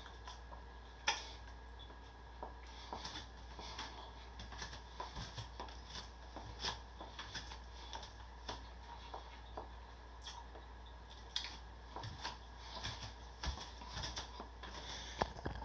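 Faint scattered clicks and light rustles over a steady low hum.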